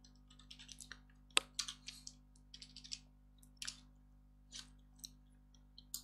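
Faint computer keyboard keystrokes: irregular, scattered clicks with one sharper click about one and a half seconds in, as text in a terminal editor is changed.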